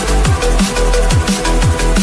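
Electronic dance music with a fast, steady beat, punchy kick drums and heavy sub-bass, without vocals.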